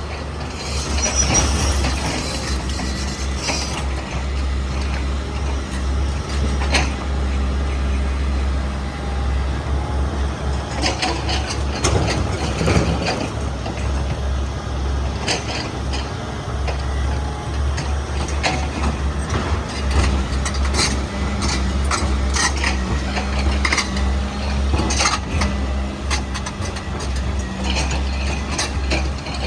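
Diesel engine of an XCMG 210 crawler excavator running steadily as the machine works, a constant low drone, with scattered clanks and short hisses over it.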